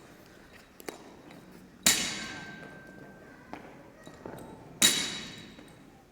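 Metal gym weights dropped on the floor twice, about three seconds apart, each a heavy clang that rings on for a second or more, with a few light knocks between.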